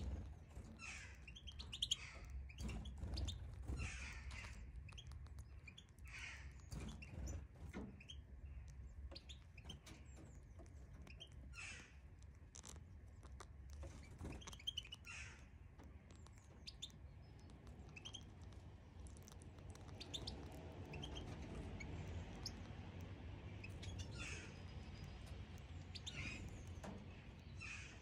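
European goldfinches at a nest with chicks: short, high chirps repeated every second or two.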